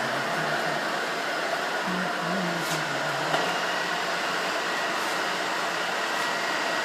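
Boring machine running steadily: a constant whirring noise with a faint high tone and a few light ticks.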